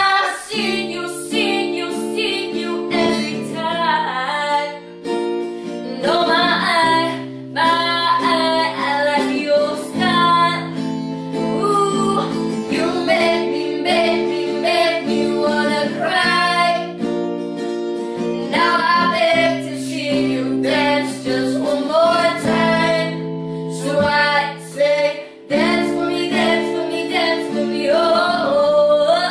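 Acoustic guitar strummed in a steady rhythm while a man and a woman sing together.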